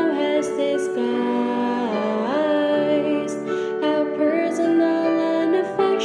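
Background music: a song with a singer holding long, gliding notes over instrumental accompaniment.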